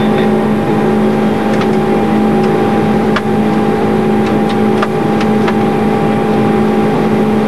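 Boeing 747-217B flight-deck noise: a loud, steady mix of rushing air and engine noise with a steady hum, and a few faint clicks.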